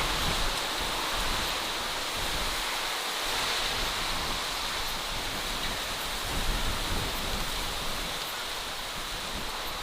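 Steady rushing ambient noise from a spooky sound-effects bed, even throughout with no distinct events.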